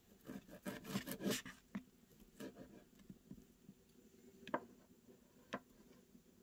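Steak knife and fork cutting a grilled buffalo steak on a paper plate: a run of quick scraping strokes in the first second and a half, then a few isolated sharp taps of the cutlery.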